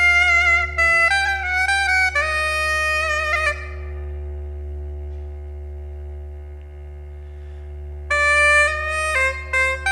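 Breton bagad music: a loud reed wind melody over a steady drone. The melody breaks off after about three and a half seconds, leaving the drone sounding alone, and comes back about a second before the end.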